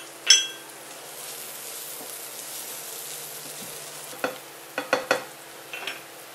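Chopped onion and garlic sizzling steadily in oil in a nonstick frying pan while a slotted spatula stirs and scrapes. The spatula strikes sharply, with one ringing clack just after the start and a quick run of clacks about four to six seconds in.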